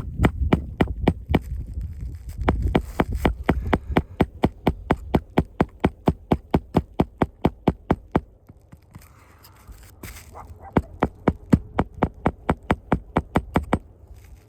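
Rapid, evenly spaced clicking at about five a second, fading for a couple of seconds past the middle and then returning, over a low rumble in the first few seconds.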